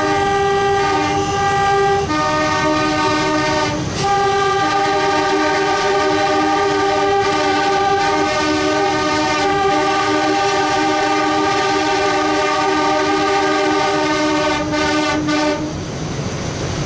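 Diesel-electric locomotive air horn sounding a chord of several notes. It is broken by short gaps in the first four seconds, then held in one long blast of about eleven seconds that cuts off about a second before the end. The locomotives' running and track noise carries on underneath.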